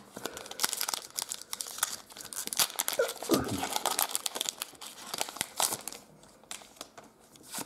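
Pokémon TCG booster packet being torn open by hand: a run of crinkling and tearing of the cardboard-sleeve blister packaging and the foil pack inside, which dies down about six seconds in.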